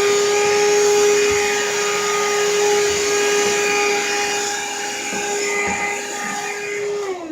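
Vacuum cleaner running with a steady whine. It is switched off near the end, and the whine falls in pitch as the motor spins down.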